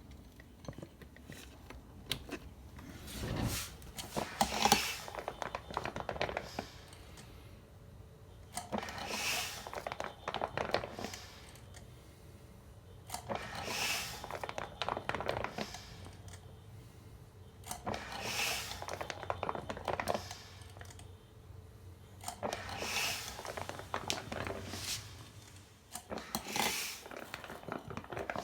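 Home-built motor-driven ventilator pump cycling at a steady breathing rate: a bout of scratchy, clicking mechanical noise about every four and a half seconds, with quieter gaps between. The noise comes partly from the pump's spring, which the builder has checked and judged harmless.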